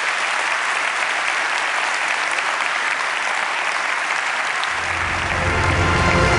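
Large auditorium audience applauding steadily. About four and a half seconds in, music with a deep bass comes in under the applause and grows louder.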